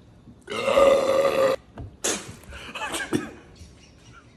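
A loud, drawn-out burp lasting about a second, from a person who has just chugged a bottle of fizzy Sprite. The burp loses the no-burping challenge. Shorter, fainter sounds follow it.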